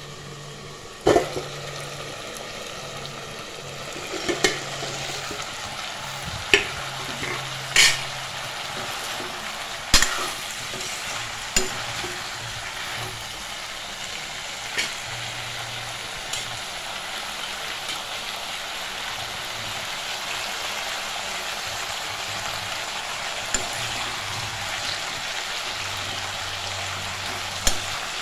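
Chopped snake gourd and potato frying in a steel kadai, a steady sizzling hiss with no water added. About nine sharp metal clinks are scattered through it, from the lid coming off and a metal ladle knocking the pan as the vegetables are stirred.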